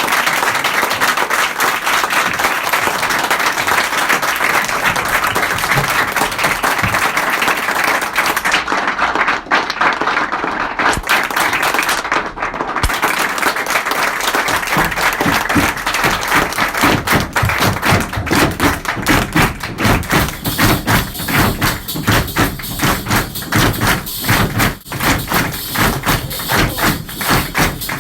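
Applause from a gathering, then, about halfway through, Latin American music with a strong, regular tapping beat starts.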